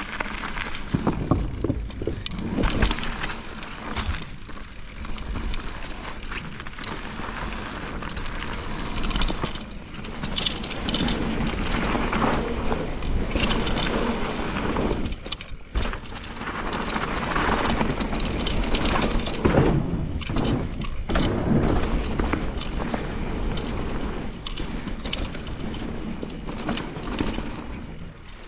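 Enduro mountain bike riding downhill on a rough trail: tyres rolling over dirt and roots, the bike rattling and clattering with frequent knocks, with wind rushing over the microphone.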